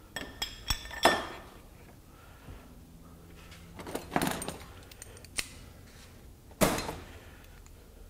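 Steel locking pliers being handled: sharp metallic clinks and clatter as they knock against each other and the steel bench top, several quick clinks in the first second, another cluster about four seconds in, and a loud clank at about six and a half seconds.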